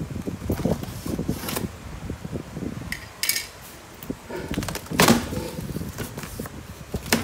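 Cardboard shipping box being opened by hand: rustling and scraping of the cardboard, with a few sharp crackles and knocks as the taped flaps come open, the loudest about five seconds in.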